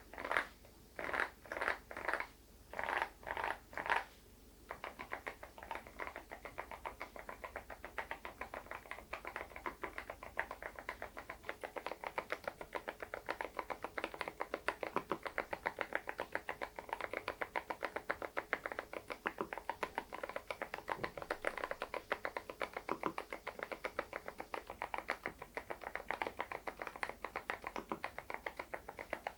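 Typing on an SPM PL108W full-size keyboard with stock, unlubed Moksae silent switches. It starts with a handful of separate key presses, then settles into steady, fast typing from about five seconds in: muted, soft clacks.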